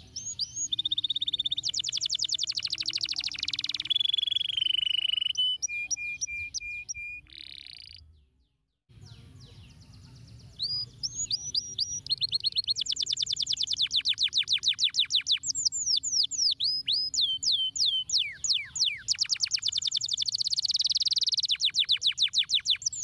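Domestic canary singing a long song of very fast trills and rolls mixed with held whistled notes and short chirps. The song breaks off for about a second about eight seconds in, then resumes with more rapid trills.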